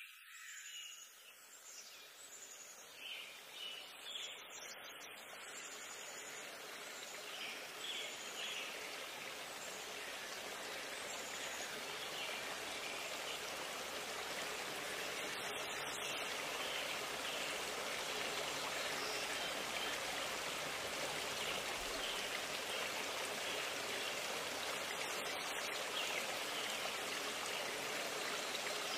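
Steady rush of flowing water, growing louder over the first half or so, with faint high chirps in the first several seconds.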